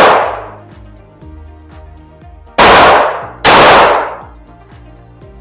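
Two shots from a ported 1911 .45 pistol, a little under a second apart, near the middle, each ringing out briefly; the tail of an earlier shot fades at the start.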